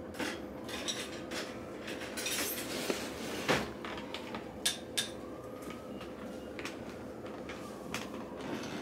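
Metal cake server and forks clinking and scraping against china plates as slices of cake are served: a scattering of light clinks, the sharpest about three and a half seconds in.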